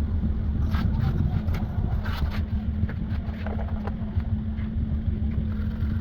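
Steady low-pitched rumble throughout, with a few short clicks and scrapes of handling about one to two seconds in.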